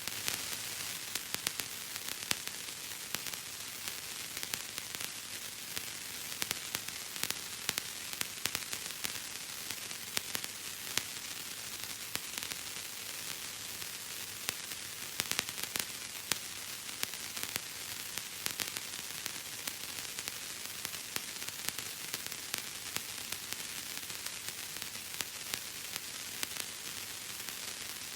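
Bubble wrap being popped: many small, irregular crackling pops over a steady hiss.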